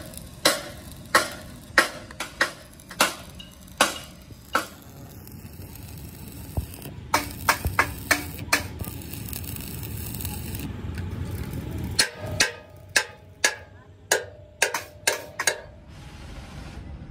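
Hand hammer striking steel plate: sharp ringing metallic blows in irregular runs of several strikes, with short pauses between the runs.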